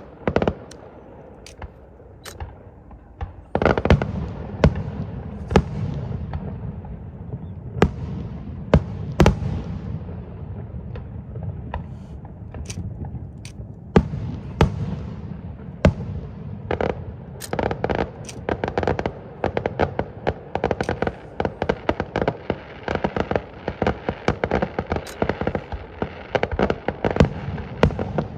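Aerial fireworks going off: sharp bangs at irregular intervals over a continuous rumbling crackle, which sets in about three seconds in. The bangs come thicker and faster in the second half.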